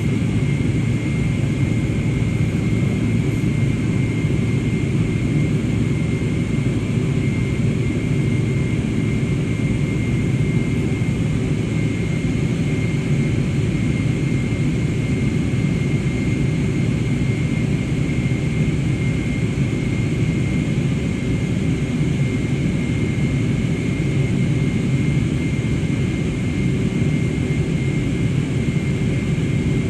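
Jet airliner engines running steadily, a constant rumble with a thin, steady high whine over it.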